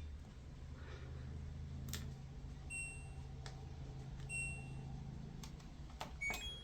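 A few short electronic beeps and faint clicks, as buttons are pressed on a front-loading washing machine's control panel, over a low steady hum that stops near the end.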